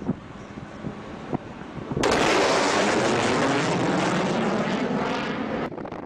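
Low-flying aircraft passing close by. A loud rush starts suddenly about two seconds in and lasts about three and a half seconds, over quieter wind-like noise.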